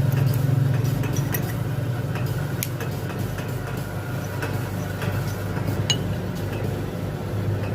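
Light metallic clinks and taps of tools on metal, scattered irregularly over a steady low hum, with one sharper clink about six seconds in.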